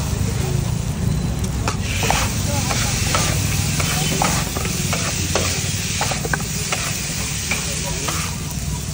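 Chicken tawa fry sizzling on a flat metal tawa griddle while a flat metal spatula scrapes and taps against it again and again, tossing the pieces. A low steady rumble runs underneath.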